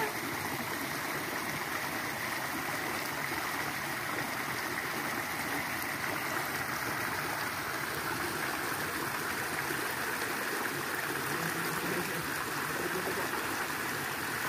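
A small creek's water flowing, a steady, even rush of running water.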